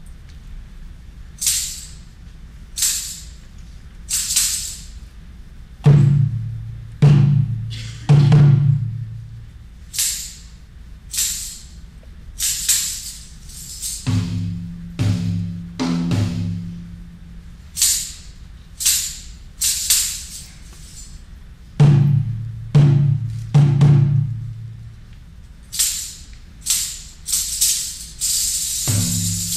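Sparse live hand percussion: short high rattle shakes spaced a second or so apart, broken several times by groups of three deep drum strokes that ring briefly.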